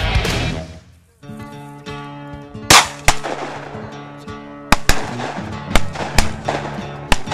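Shotgun shots, about eight sharp reports spread irregularly over the last five seconds and louder than anything else, over background music. One song fades out about a second in and another starts just after.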